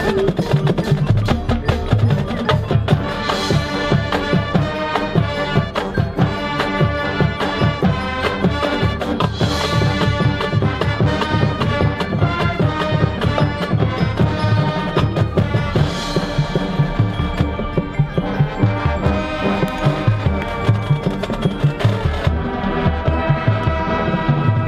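High school marching band playing its field show: sustained pitched wind parts over dense, rapid drum and front-ensemble percussion strikes.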